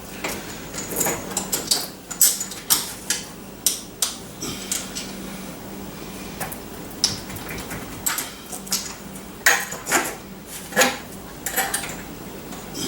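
Metal hardware and tools clinking and knocking irregularly as a bench grinder is fastened to a workbench with bolts and wing nuts.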